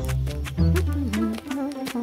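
Background music: a tune with steady bass notes, a wavering melody line and a quick ticking beat.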